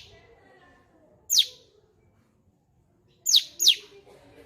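Cucak cungkok songbird calling: three sharp notes that each sweep quickly downward in pitch, one about a second in and a quick pair near the end.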